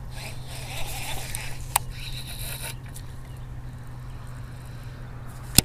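Baitcasting reel and line scraping and whirring for about the first three seconds, with a sharp click a little under two seconds in and a louder sharp click near the end.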